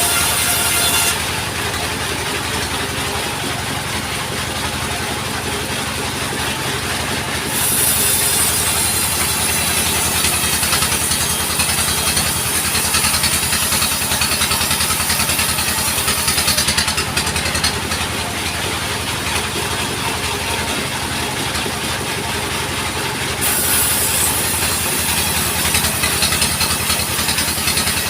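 A sawmill's engine running steadily, with the high hiss of the saw cutting timber coming and going in long stretches.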